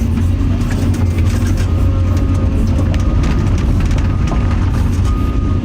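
Excavator's diesel engine running steadily, with scattered light knocks and a faint high whine that comes and goes.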